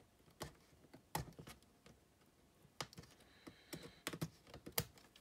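Faint, irregular small clicks and taps of a small screwdriver tip and fingers working the plastic flat-cable connectors on an Olivetti Quaderno laptop's logic board as the ribbon cables are released, about a dozen in all, more of them in the second half.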